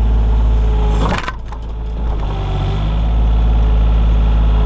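Komatsu PC28 mini excavator's diesel engine running steadily under working load, with a sharp crack or knock about a second in; the engine note drops briefly afterwards and then picks back up.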